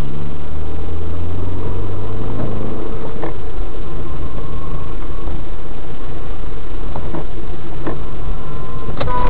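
Car engine and road noise heard inside a moving car through a dashcam microphone: a loud, steady low drone with a few faint clicks. A car horn starts to sound right at the end.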